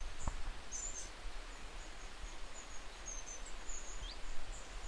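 Quiet ambience: a low steady rumble with faint high-pitched chirps repeating throughout, a brief rising chirp about four seconds in, and a faint click near the start.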